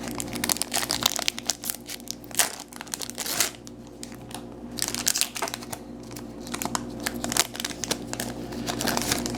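Foil trading-card pack wrapper crinkling and tearing as it is handled and opened, with irregular crackles throughout over a faint steady hum.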